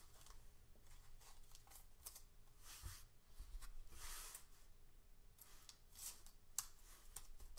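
Faint scraping and rustling of a trading card being handled and slid into a clear plastic card holder, with a few soft clicks and one longer scrape about four seconds in.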